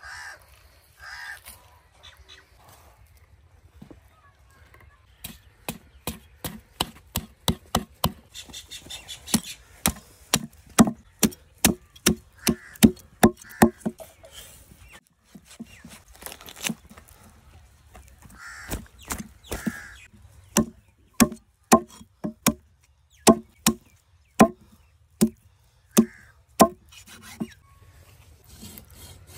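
Heavy cleaver chopping through a large fish on a wooden log chopping block: a long series of hard blows, about two a second, with a short pause about halfway through.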